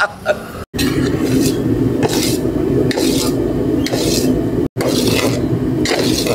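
Puffed rice (mandakki) being tossed and mixed by hand in a large metal bowl. The grains rustle and scrape against the metal, with a swish about once a second, over a steady low rumble.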